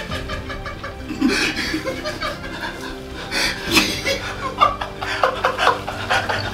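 Two men sitting in an ice-cold bath laughing and groaning through the pain of the cold, in short uneven outbursts, the loudest a little before four seconds in.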